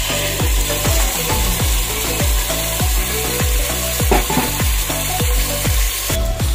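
Tomato, garlic and ginger paste sizzling loudly as it hits hot oil and fried onions, a dense hiss that cuts off near the end. Background music with a steady beat runs underneath.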